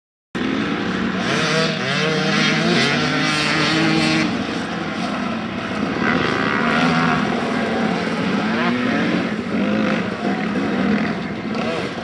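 Dirt bike engine running hard, its pitch rising and falling as the rider works the throttle. The sound cuts in suddenly right at the start.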